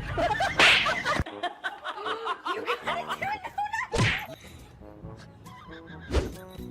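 Music with bending, cartoonish pitched sounds, broken by three short sharp hits.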